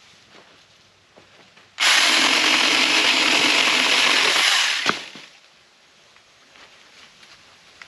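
Saker mini battery electric chainsaw running for about three seconds, starting and stopping abruptly with the trigger, followed by a single sharp snap.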